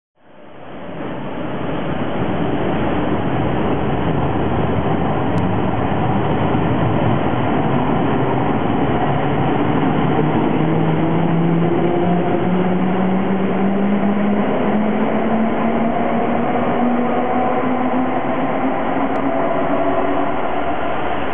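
Siemens–Orenstein & Koppel subway train pulling out of an underground station: a steady rumble of wheels on rail, with a motor whine that slowly rises in pitch as the train picks up speed through the second half.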